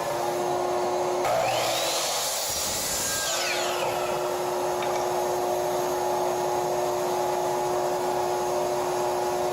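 A woodworking power tool's motor spins up to a steady high whine and cuts oak for about eight seconds, the cutting noise starting about a second in.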